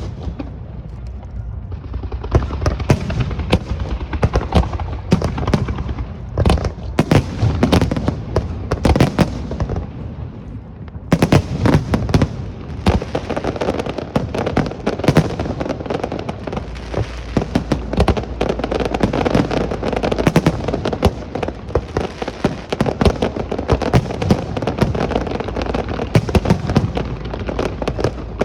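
Fireworks display: a rapid, continuous barrage of bangs and crackling. It thins to a brief lull about ten seconds in, then comes back denser.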